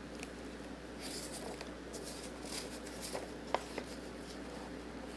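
Quiet room tone with a faint steady hum, a few soft rustles and small clicks, one a little clearer about three and a half seconds in.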